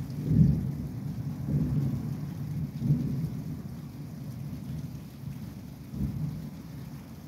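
Thunder rumbling in several low rolls. The loudest swells come about half a second in and near three seconds, another comes about six seconds in, and then the rumble eases off.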